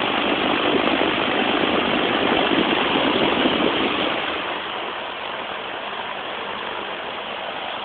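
1973 Lakewood three-speed metal-bladed box fan running on high: a steady rush of air and motor hum, whose level drops about two-thirds of the way through.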